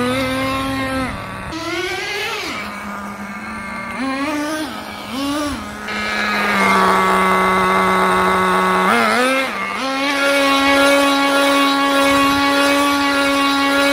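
HSP 94102 nitro RC touring car's small two-stroke glow engine revving hard as the car is driven, its pitch swelling up and down with the throttle, then held high and steady for several seconds at a time before dropping off near the end.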